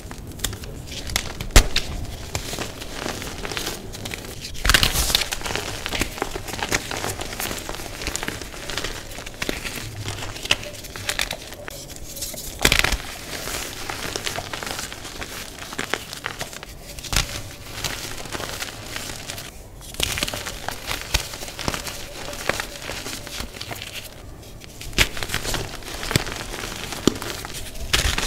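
Blocks of dyed gym chalk crushed and crumbled between bare hands. A dense dry crackling and crunching of the breaking chalk runs with the rustle of powder, and a handful of louder crunches stand out.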